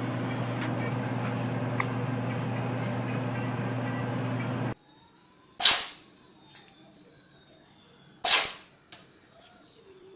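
A steady background hum that cuts off about five seconds in. Then three short, sharp cat sneezes, roughly two seconds apart, the last right at the end.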